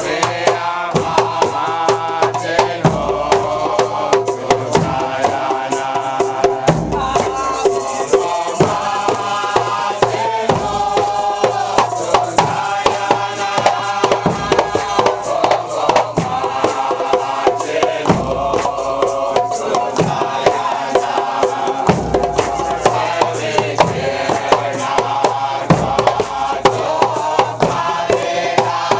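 Nyabinghi drumming on hand drums with a large bass drum, under a congregation singing a chant together and clapping hands.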